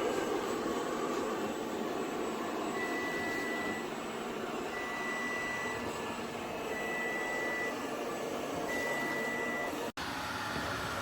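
Robot vacuum cleaner running with a steady whirring hum. Four long, even beeps at one high pitch sound about two seconds apart through the middle of it. The sound cuts out for an instant near the end.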